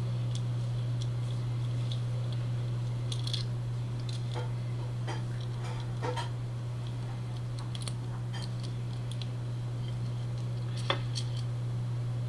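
Steady low hum with scattered faint clicks and ticks, one sharper click about eleven seconds in.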